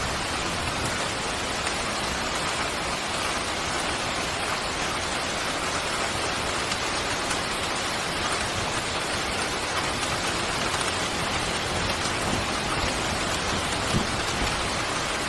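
Steady rain falling, an even hiss without let-up, with a brief low thump near the end.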